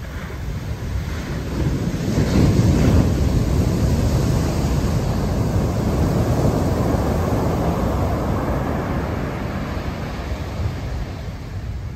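Heavy surf from a large swell breaking on a sandy beach and washing up the sand: a steady rush of waves that swells about two seconds in and slowly eases off.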